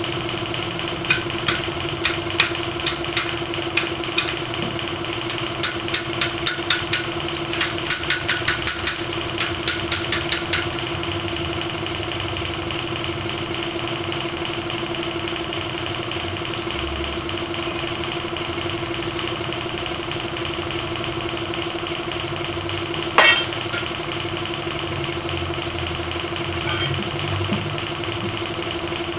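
A steady engine hum runs throughout. Over the first ten seconds come quick runs of sharp taps, then one louder knock about 23 seconds in.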